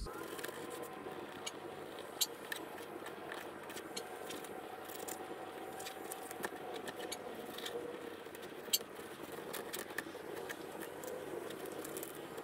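Fillet knife slicing and scraping through snapper on a plastic cutting board: soft scrapes and scattered small clicks over a steady hiss, with a sharper tap about two seconds in and another near nine seconds.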